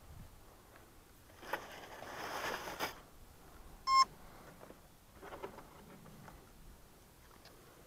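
Dry grass and foam rustling as the RC plane is handled, then one short electronic beep about four seconds in. The electric ducted fan is not running.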